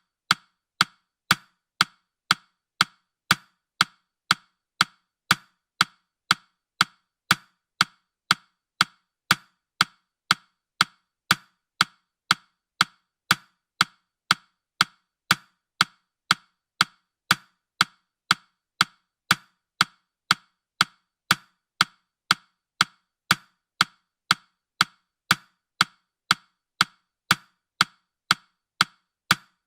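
Countdown timer's ticking sound: sharp, even clicks at about two a second.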